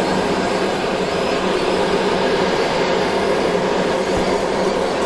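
Fiber laser engraver running an engraving pass over a zirconium coin, a steady machine hum.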